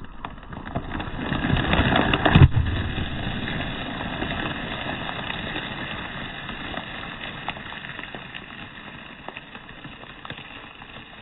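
A bag of Cheetos crushed under a car tyre: the plastic snack bag crinkles and the puffs inside crunch, building to one sharp, loudest crack about two and a half seconds in. Softer crackling follows and slowly dies away.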